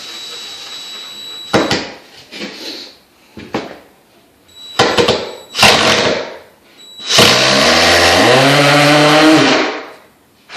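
DeWalt 20 V cordless impact driver driving a screw: a few short bursts of the trigger, then one sustained run of about three seconds near the end, its pitch rising and then falling as it stops.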